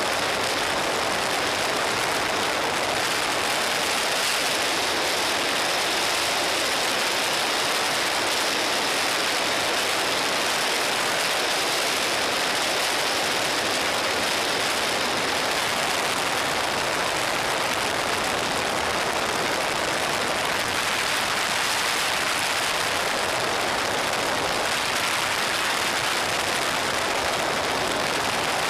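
Steady wind rush and road noise on a camera mounted on a Suzuki SV650 motorcycle cruising at highway speed, with the engine faint beneath it.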